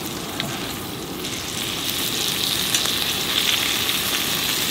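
Salmon steak and scallops sizzling in oil on a hot wrought-iron griddle, the sizzle growing louder from about a second in as whole prawns are laid on.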